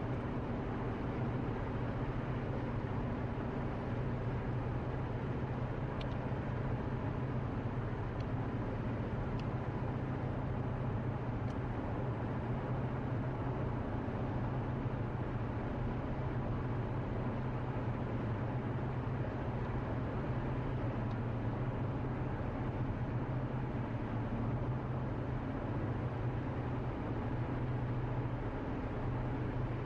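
Steady drone of a car cruising at highway speed, heard from inside the cabin: road and engine noise with a low hum, unchanging throughout.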